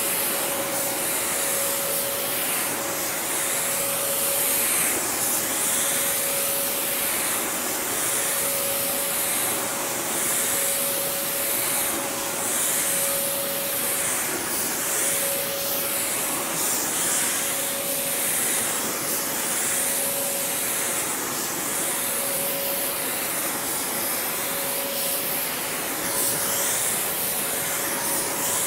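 DeVilbiss DV1 clear-coat spray gun hissing as it sprays clear coat, the hiss swelling and fading with each pass. Under it the inflatable booth's blower fan gives a steady whine.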